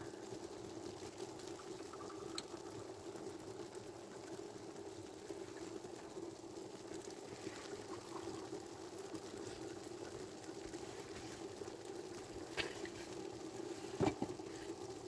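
Large pot boiling steadily over an open wood fire, with a few faint sharp clicks, two of them near the end.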